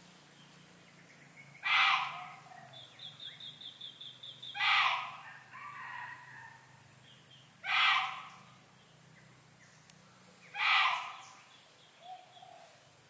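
A bird's harsh call, given four times about three seconds apart, with a quick run of high ticks between the first two calls.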